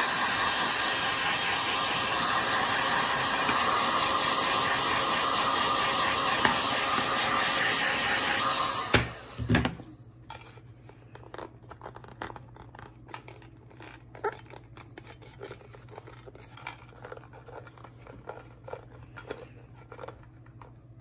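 Genesis GHG1500A heat gun running with a steady blowing rush, switched off about nine seconds in. After it stops there are light, scattered clicks and taps of handling over a low hum.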